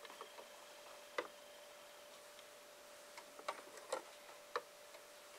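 A few faint, sharp plastic clicks as the hinged LEGO brick doors are swung open, unevenly spaced, the loudest about a second in and a small cluster later on.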